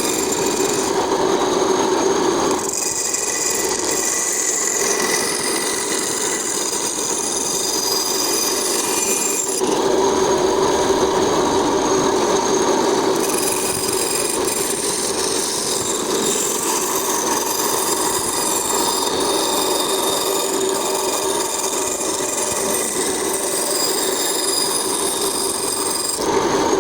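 Band saw running and cutting wood: a steady whine with a rasping hiss over it, changing in tone a few times as the cut goes on.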